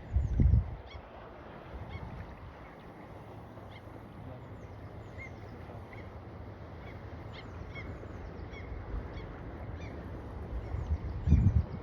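Birds calling with short, repeated high chirps over a steady hiss. Two brief low rumbles stand out, one about half a second in and one near the end.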